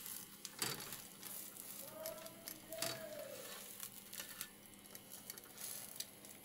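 Metal spatula scraping and tapping on a flat iron tawa as a pakora patty fries in a little oil: a few sharp scrapes over a faint crackle.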